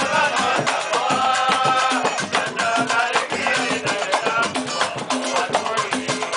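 Live pagode samba: a cavaquinho strumming, a pandeiro and a mallet-struck surdo keeping a steady beat, and several voices singing along together.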